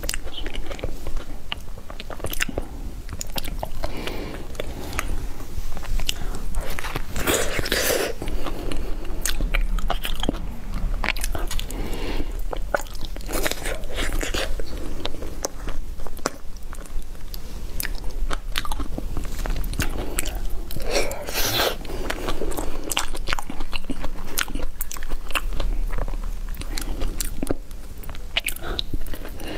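Close-miked chewing of soft durian flesh: a person biting and chewing, with many short mouth clicks and smacks throughout.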